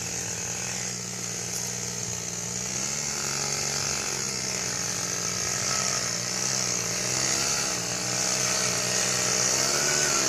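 Small motorbike engine running as it drags a log, its pitch stepping up a little about three seconds in and then wavering. A steady high-pitched hiss runs throughout.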